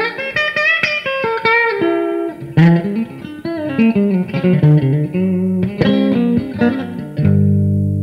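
Blues guitar licks: a run of single plucked notes with string bends, ending near the end on a low chord that rings out and fades.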